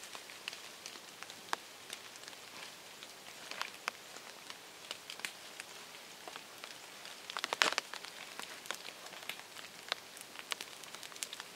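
A tinder bundle of dead plant leaves and birch bark catching fire from a friction-fire ember: scattered small crackles and pops over a faint hiss, with a louder burst of crackling about seven and a half seconds in.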